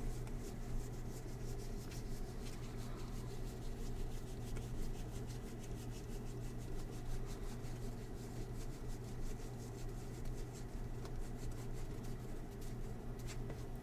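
Baseball cards being slid and flipped through by hand, a soft rubbing with many light ticks, over a steady low hum.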